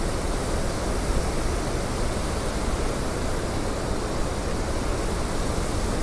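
Randha Falls, a large waterfall running full, giving a steady, unbroken rush of heavy falling water.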